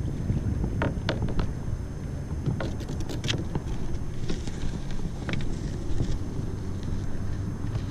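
Wind buffeting the microphone in a steady low rumble, with scattered light clicks and knocks from the push pole being staked into the bottom and a fishing rod being picked up aboard a small round plastic skiff.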